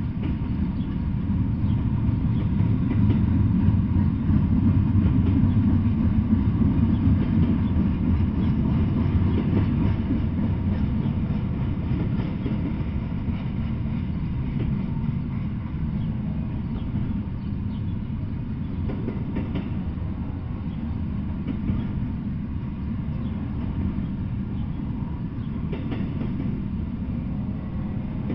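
Double-stack intermodal freight cars rolling past on the rails: a steady low rumble of wheels on track, louder in the first ten seconds or so, with a few faint clicks.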